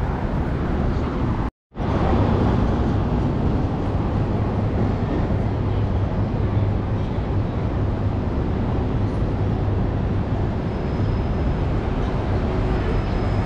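Steady city street noise of traffic, with a brief dropout about a second and a half in where the audio is cut.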